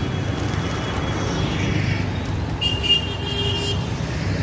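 Steady street traffic on a busy road, with motorbike and car engines passing. A high horn tone sounds for about a second midway.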